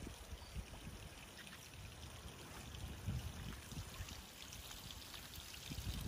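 Wind buffeting the microphone: an uneven low rumble in gusts, swelling about three seconds in, over a faint steady hiss.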